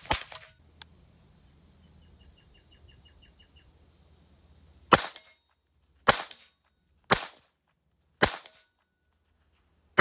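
Ruger Mark IV 22/45 .22 pistol firing: four sharp shots about a second apart, starting about halfway through, with a fifth right at the end.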